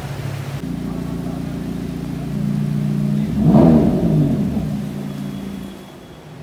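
Lamborghini Huracan EVO's naturally aspirated V10 running at idle, blipped once about halfway through in a quick rev that rises and falls straight back, then settling to idle again.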